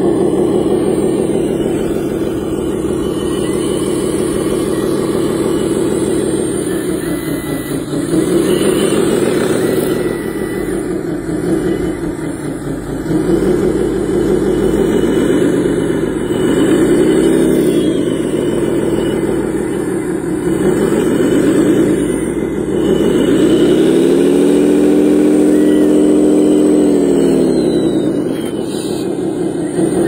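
Motor of a radio-controlled hydraulic wheel loader running steadily as it works soil. In the second half it swells up and falls back in pitch several times, the longest swell near the end.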